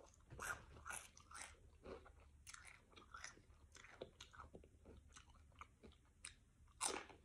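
Nacho cheese Doritos tortilla chips being bitten and chewed with the mouth close to the microphone: a run of faint, irregular crunches.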